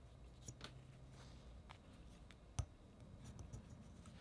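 Faint handling sounds of a vinyl figure held in the hands: scattered light taps and rubs, with one sharper tap about two and a half seconds in.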